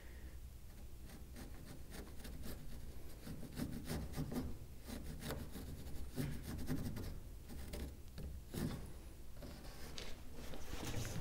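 Irregular scratching and small clicks of a hand tool picking and prying worm-eaten wood out of an old wooden boat plank. The wood is hollowed out by woodworm, so it comes away in small crumbling pieces.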